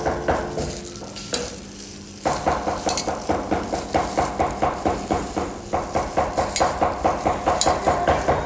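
A plastic-gloved hand mixing shredded pork skin with roasted rice powder in a stainless steel pot, making a rhythmic squishing and rustling with each toss. It pauses briefly about a second in. This is the mixing stage of making Vietnamese fermented pork (thịt chua).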